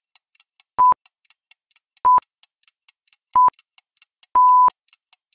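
Countdown timer sound effect: fast, faint ticking with a short high beep about every 1.3 seconds. There are four beeps, and the last, near the end, is held longer.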